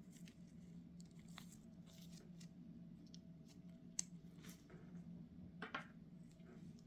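Faint clicks, taps and scraping of small carburetor parts and tools being handled during disassembly, with one sharp click about four seconds in and a short scraping rustle near six seconds, over a low steady hum.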